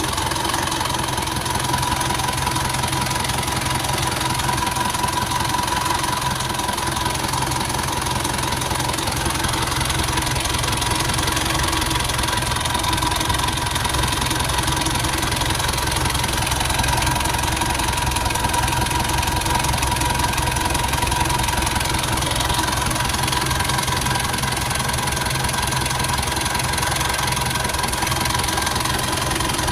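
Engine idling roughly, running steadily with no revs, with a constant whine over it.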